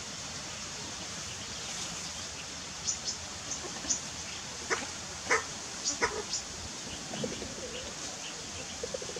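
Outdoor ambience: a steady hiss with a run of short, high bird chirps and a few sharp clicks in the middle.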